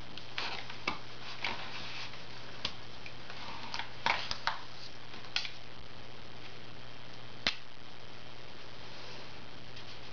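Plastic felt-tip markers (Crayola Super Tips) being handled: a scatter of light clicks and taps as one is picked out of the set, thickest around four seconds in, then one sharp click about seven and a half seconds in.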